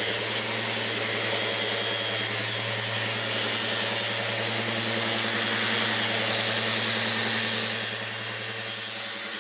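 An electric power tool's motor running steadily, a strong hiss over a low hum, getting quieter near the end.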